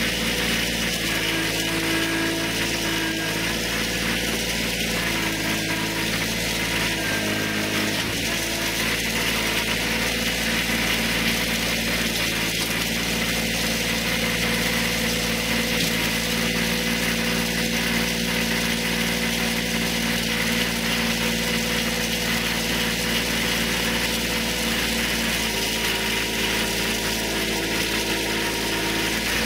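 Kubota tractor's diesel engine running steadily, close by.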